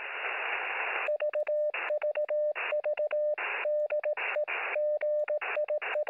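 Morse code heard over a radio receiver: a steady tone around 600 Hz keyed in short and long elements, with radio hiss filling the gaps. Before the code starts, about a second of hiss alone.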